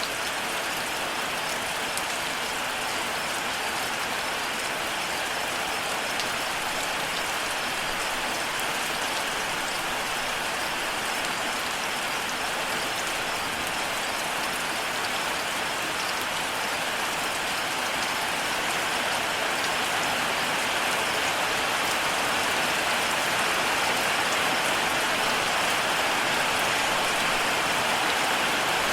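Steady rain falling and pattering on a surface, as an even hiss that grows slightly louder in the second half.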